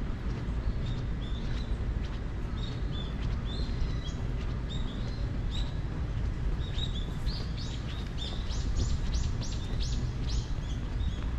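Birds chirping: short, high calls, many sliding down in pitch, with a quick run of them from about seven to ten seconds in, over a steady low background rumble.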